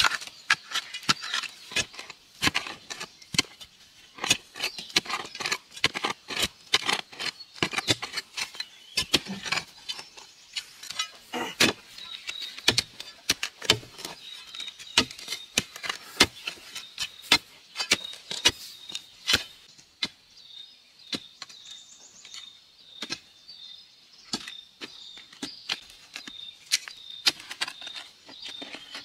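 A metal digging bar and a narrow long-handled spade strike and scrape into stony soil while digging out a post hole, with many sharp irregular hits of metal on dirt and pebbles, a few per second. A faint, steady, high tone comes in about twelve seconds in.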